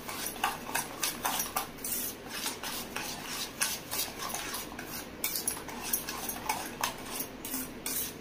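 A spoon beating an egg-and-sugar mixture in a stainless steel bowl, clinking rapidly and unevenly against the metal sides, several clicks a second.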